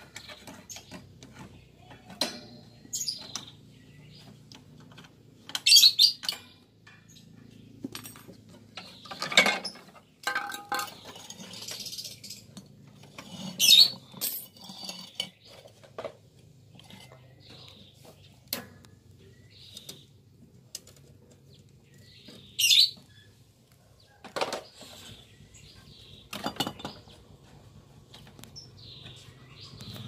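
Pliers and metal fittings clicking, clinking and knocking as the wiring and fittings of a refrigerator compressor are handled, with a few louder sharp clatters and a low steady hum underneath.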